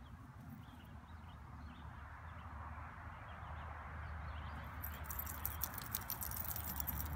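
Outdoor backyard ambience: a steady soft rustle with faint, scattered bird chirps, and a rapid run of crisp clicks over the last two seconds.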